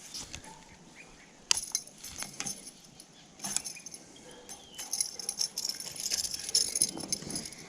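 Scattered clicks and light metallic jingling of fishing tackle being handled, the buzzbait's metal blade and hooks rattling while a just-caught bass is held, busier from about five seconds in.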